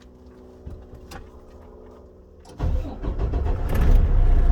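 Truck engine starting about two and a half seconds in: its low rumble builds for over a second, then runs steadily.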